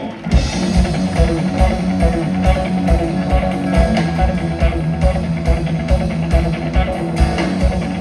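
Live rock band starting a song: electric guitar, bass guitar and drum kit come in together at once and play a steady beat of about two hits a second.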